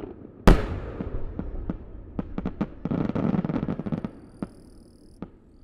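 A three-shaku fireworks shell bursts with one loud boom about half a second in. Its rumble dies away under a run of sharp cracks and pops, which thin out and fade toward the end.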